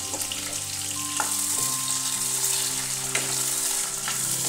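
Freshly added tomato and capsicum pieces frying in hot oil in a wok, a steady sizzle. A wooden spatula stirs them, with a few sharp clicks.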